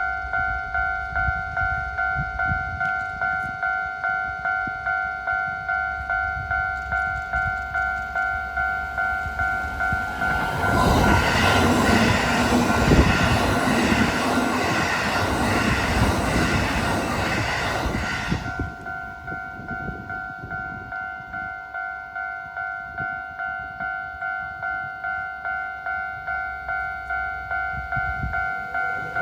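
Japanese level-crossing warning bell ringing steadily, about one and a half dings a second. From about 11 to 18 seconds in, a Kintetsu electric train passes over the crossing and its running noise swamps the bell. Near the end another train starts to come in.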